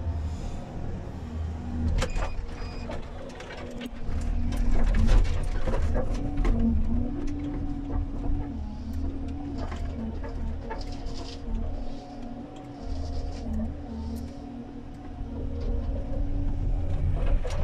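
Komatsu 931.1 harvester's diesel engine and hydraulics running, heard from inside the cab. The pitch rises and falls as the crane and harvester head work, with repeated knocks and cracks as the head grips and feeds a tree and strips its branches.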